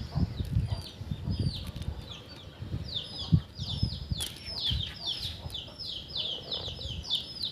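Small birds chirping: a dense run of quick, high, downward chirps, several a second, thickening about three seconds in, over irregular low thumps and rumble.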